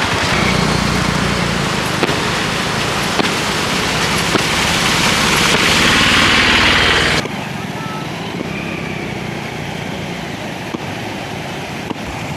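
Autorickshaw engine running with a low pulsing note under a loud rushing noise that builds for several seconds. About seven seconds in, the sound cuts abruptly to a quieter running engine.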